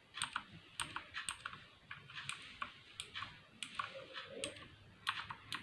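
Typing on a VortexSeries VX7 mechanical keyboard with Outemu switches: irregular keystrokes, a few clacks a second, as a demonstration of how the keys sound.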